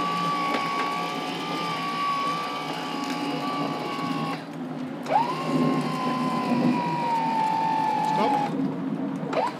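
Electric motor on the sailboat's rig hoisting the new mainsail, running with a steady whine. It stops about four seconds in, then spins up again with a rising pitch a second later and runs until near the end.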